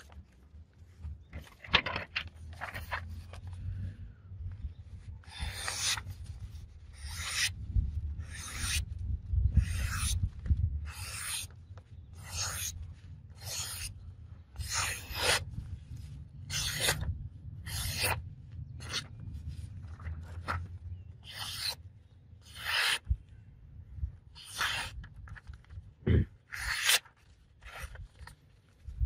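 A sharp steel knife blade, made from an old file, slicing through sheets of printer paper again and again: a short, crisp swish about every three-quarters of a second, starting a few seconds in. It is a paper-slicing test of the edge's sharpness.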